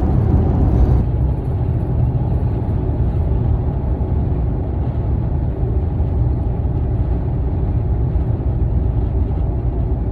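Steady low road rumble and engine hum of a car cruising on the highway, heard from inside the cabin.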